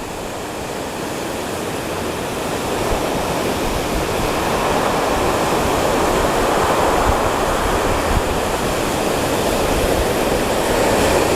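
Ocean surf washing against the shoreline: a steady rush that slowly swells and stays up.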